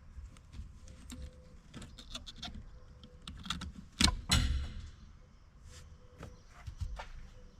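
Tools and metal car parts being handled, giving a series of light clicks and knocks. Two louder clanks come close together about four seconds in.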